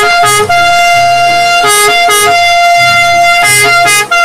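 Italian ambulance's electronic two-tone siren, alternating between a higher and a lower note, holding the higher note longer.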